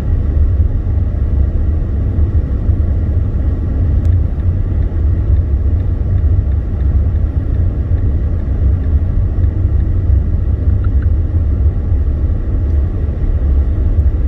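Steady low rumble of a car driving on a snowy, icy road, heard from inside the cabin: engine and tyre noise.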